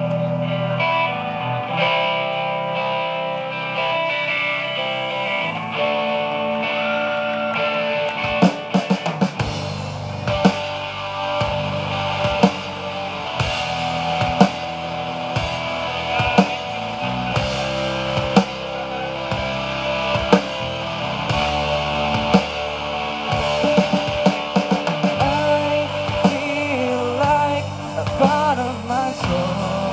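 Live rock band playing an instrumental intro: guitars carry sustained chords and lines, and the drum kit comes in about eight or nine seconds in, keeping a beat to the end.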